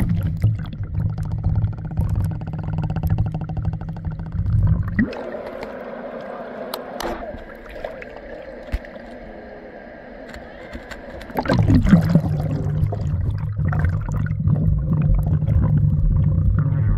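Muffled underwater rumble of river water as the camera goes under with a slosh; it surfaces about five seconds in to quieter lapping water, then plunges under again with another slosh about eleven seconds in, and the low rumble returns.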